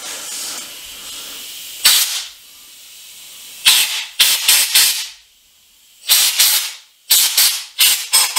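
Compressed-air blow gun fired in about ten short, sharp blasts, many in quick pairs and triples, into a freshly tapped bolt hole in an aluminium SR20DET cylinder head, clearing out tapping chips and debris. A softer steady hiss comes first.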